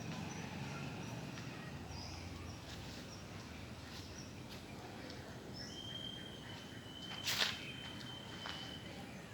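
Outdoor background noise with faint, short bird-like chirps. A steady high tone comes in about six seconds in and holds for about three seconds. A brief sharp noisy burst about seven seconds in is the loudest sound.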